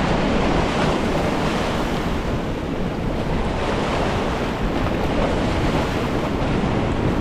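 Ocean surf washing in steadily, with wind noise on the microphone.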